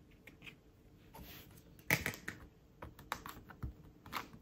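Clear stamps and plastic stamping tools handled on a desk: a string of light clicks and taps, the sharpest about two seconds in.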